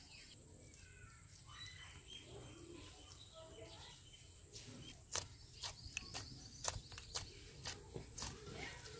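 Hands kneading a soft dough in a bowl. After a few seconds of faint background, there is a run of soft, irregular slaps and knocks about twice a second.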